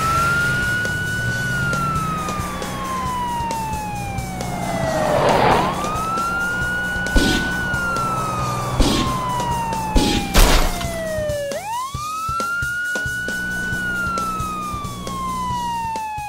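Police car siren in a slow wail: a quick rise, then a long falling glide, repeated about three times. It plays over background music, with a few short sharp hits in the middle.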